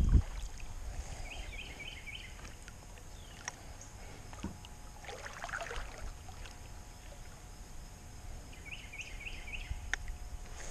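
Kayak on calm water: a soft paddle splash about halfway through and faint clicks, after a brief low rumble right at the start. A small bird sings a quick run of four notes twice, about a second in and near the end.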